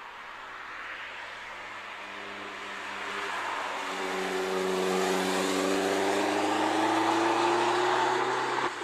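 Opel Speedster's engine accelerating past on a wet track, its note climbing steadily in pitch and growing louder over several seconds, with tyre spray hiss from the wet surface underneath. It drops away abruptly just before the end.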